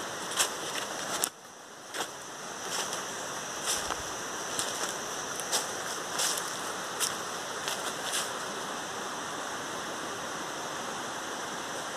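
Steady rushing noise, with scattered sharp crackles and snaps for about the first eight seconds.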